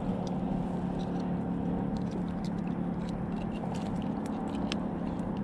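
A steady low hum, with faint scattered clicks and light water sounds as a bass is held in the water.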